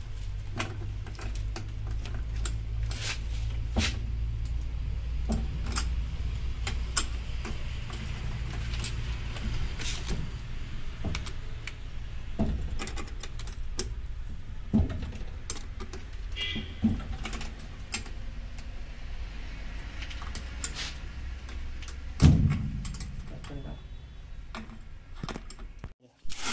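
Steel spanner clinking and ticking on a lead-acid battery's terminal bolts as the cable clamps are loosened and taken off, many small metallic clicks with a heavier knock about three-quarters of the way through. A low rumble sits under the first half and fades out.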